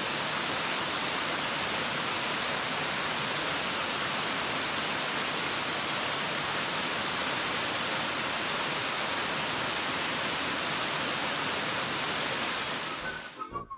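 Steady rush of water from Crabtree Falls and the rocky cascades of the stream below it. Near the end the water sound fades out quickly and a few clear, whistle-like notes of music come in.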